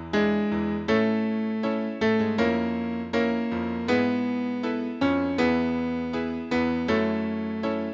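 Piano-toned keyboard playing a slow, gentle accompaniment, a new chord struck about once a second and left to ring and fade. No singing voice is heard.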